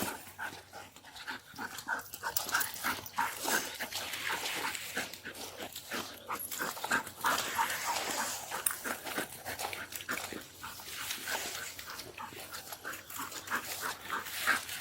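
Police tracking dog panting rapidly and steadily, a quick run of short breaths.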